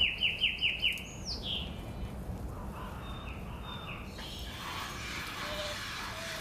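A bird calling: a quick run of about five downward-sweeping chirps in the first second, one longer note just after, then fainter calls. An even hiss of background noise takes over about four seconds in.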